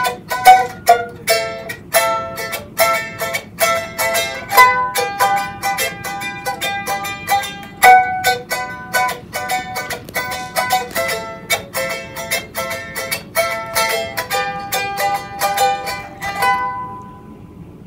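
Tahitian ukulele with a thin, almost all-wood handcrafted body, strummed quickly in a rhythmic tune. The playing stops near the end.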